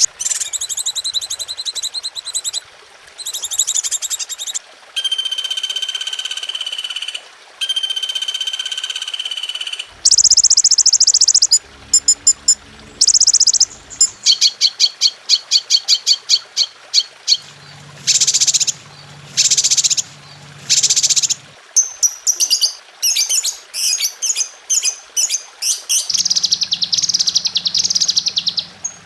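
Recorded songbird calls for tutoring caged birds: high-pitched chirps and rapid trills, switching abruptly to a different song every few seconds.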